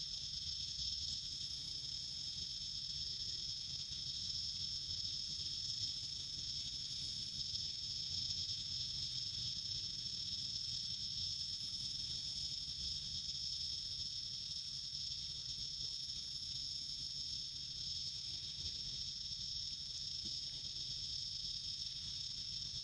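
Steady, high-pitched chorus of insects, one continuous shrill drone that does not break, over a low rumble.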